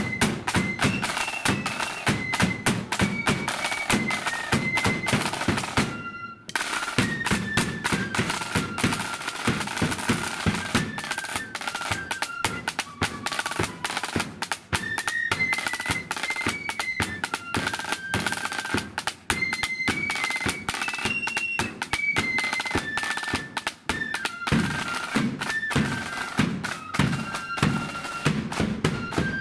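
Marching flute band playing a tune: flutes carrying a high melody over fast side-drum strokes and rolls and a bass drum beat. The sound breaks off briefly about six seconds in.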